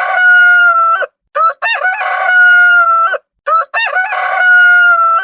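Rooster crowing, cock-a-doodle-doo, over and over: each crow is a few short rising notes and then one long drawn-out note that sags slightly at the end. There are three crows in all, the first already under way.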